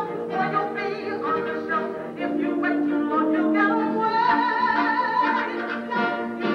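Pit orchestra music from a stage musical number, recorded live in the theatre.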